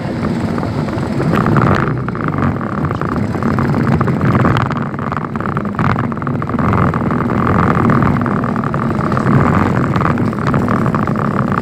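Motorcycle engine running steadily while riding through shallow floodwater. A steady hiss runs over the engine sound.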